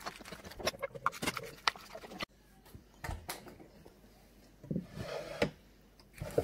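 Hands squeezing a halved lemon into a bowl: a quick run of small squelches and clicks for about two seconds, then a sudden break followed by a few soft knocks and rubs as the bowl of juice is handled.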